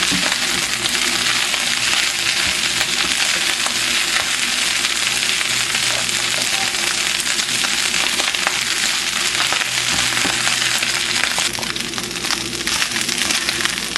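Rice frying in hot coconut oil in a frying pan: a steady sizzle.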